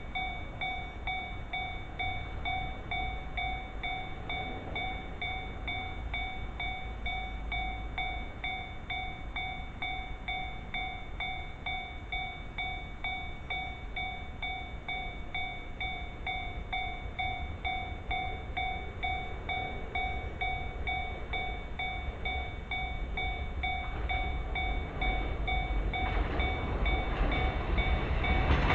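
Japanese railway level crossing warning bell ringing in an even pulse of about two strokes a second, as a train approaches; the train's rumble grows steadily louder over the last few seconds.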